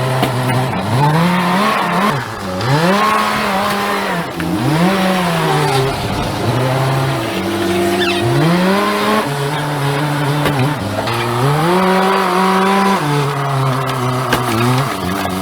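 Heavy-equipment diesel engine repeatedly revving up and dropping back, its pitch rising and falling every second or two as the machine works under load.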